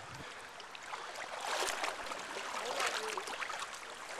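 Flowing river water, with a few brief splashing sounds.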